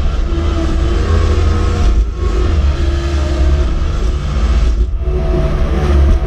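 Cat skid steer's diesel engine running under load while plowing snow, with a whine that rises and falls in pitch. The sound briefly dips twice.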